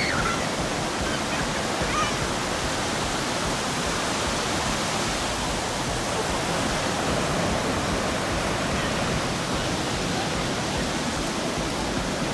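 Steady rushing noise, even and unbroken, with a few faint chirps in the first two seconds.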